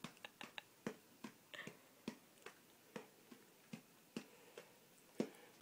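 Faint light taps of a child's finger on cardboard snack boxes, about two or three a second, as he points from box to box counting out which one to pick.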